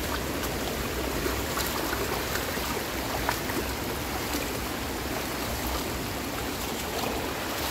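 Steady rush of water from a small waterfall.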